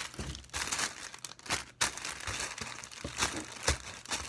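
Plastic packets of craft add-ins, such as pom-poms, crinkling and rustling as they are shuffled around a table by hand, with irregular sharp crackles.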